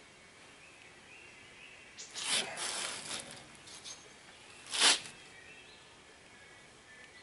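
Handling noise as things are moved about: a rustling scrape with a few clicks for about a second and a half, then one sharp clack about five seconds in. Faint bird chirps sound in the background.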